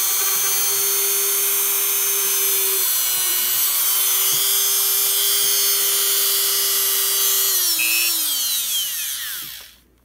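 A small Dremel-type rotary tool with a tiny drill bit runs at a steady high whine while drilling a hole straight down through a hard plastic counting chip. About seven and a half seconds in, it is switched off, and the whine falls in pitch as the motor spins down to a stop.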